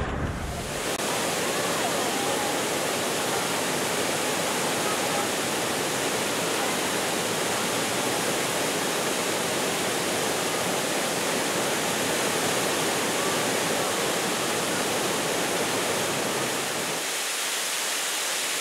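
Waterfall cascading down rocks: a steady, even rush of falling water, its low rumble thinning out near the end.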